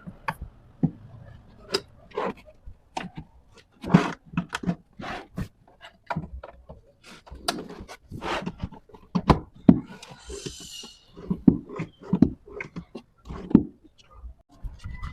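Irregular wooden knocks, taps and clacks of workpieces being handled and fitted, with a brief hiss a little over ten seconds in.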